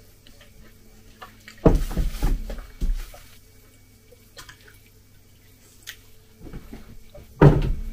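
Hot water poured from a kettle into a mug: a knock as the kettle is taken up, then a short splashing pour, with small clinks and a louder knock near the end as the kettle is set back down.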